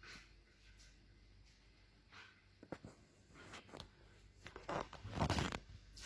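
Irregular scratching and scraping noises with scattered clicks, loudest a rustling scrape about five seconds in.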